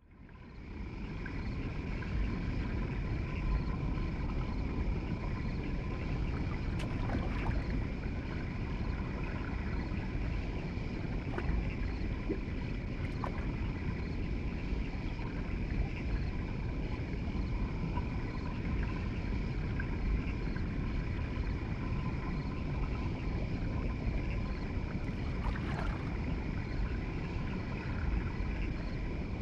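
Steady low rumbling water noise from a turtle aquarium, fading in over the first second. A faint steady hum runs under it, and a few soft clicks sound now and then.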